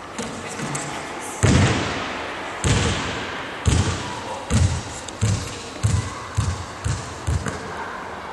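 A basketball bouncing on a wooden gym floor: about nine echoing thuds that come closer and closer together, as a loose ball does when it bounces to rest after a shot.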